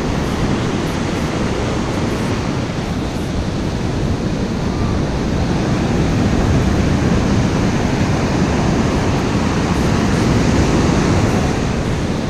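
Ocean surf breaking and foamy swash running up the sand: a steady, loud rushing that swells a little in the second half.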